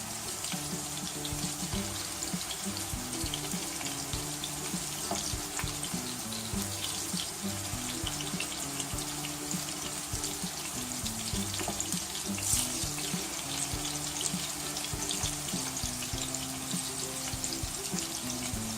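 Galouti kebabs shallow-frying in oil in a pan: a steady sizzle full of tiny crackles. A background tune plays underneath.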